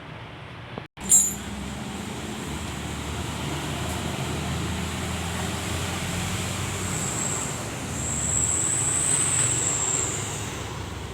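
Oil-less 'silent' 50-litre air compressor running steadily: a low motor hum with a thin high whine that grows louder past the middle. A sharp click comes about a second in, just after a momentary dropout.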